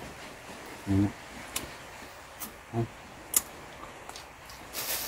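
Two men eating grilled fish by hand: two short murmured vocal sounds, a few small sharp clicks as the fish is picked apart and chewed, and a short burst of hiss near the end.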